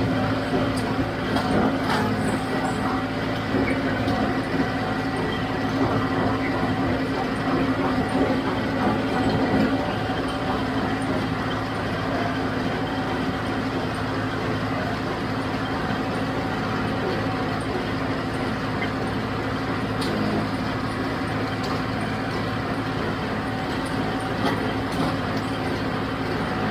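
John Deere 5055D diesel tractor running steadily at working speed while powering a John Deere 348 small square baler through hay, the baler's mechanism running along with it.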